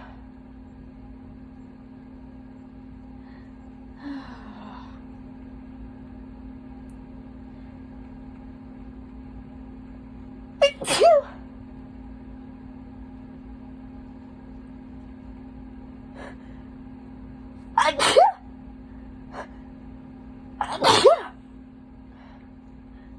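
A person sneezing three times, wet, induced sneezes a few seconds apart, with a few faint short sounds between them. A steady low hum runs underneath.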